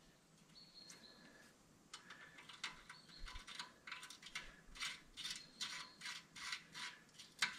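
Hand ratchet clicking in a steady rhythm, about three clicks a second, as the nut on a replacement tie rod end is run down by hand. The clicking starts about two seconds in, with a sharper click near the end.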